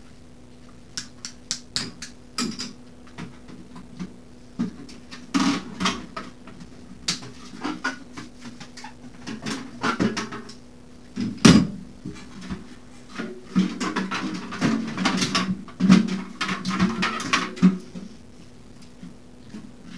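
Hands and tools working on a Honda CB500's bodywork: scattered clicks, knocks and rattles of plastic and metal parts, with one sharp knock about eleven seconds in and a busier run of clattering and scraping near the end as the fuel tank comes off. A faint steady hum runs underneath.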